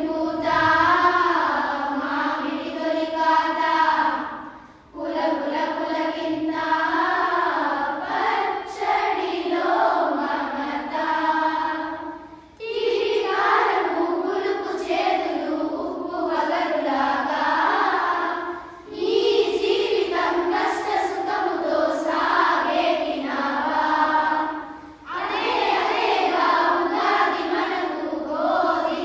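A group of schoolchildren chanting shlokas in unison, in long melodic phrases of about six seconds each with short breaks between lines.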